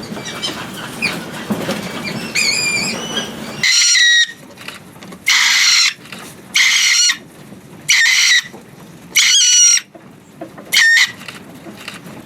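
Farmed mink squealing: about six loud, harsh, high-pitched squeals, each around half a second long and roughly a second apart, starting a few seconds in over a low, noisy background.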